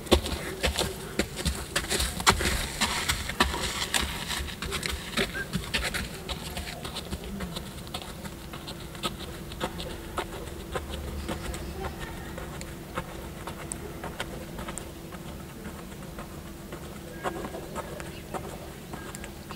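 Horse's hooves crunching on gravelly dirt at a walk, loud and close at first, then fainter as the horse moves away. A steady buzzing hum runs underneath.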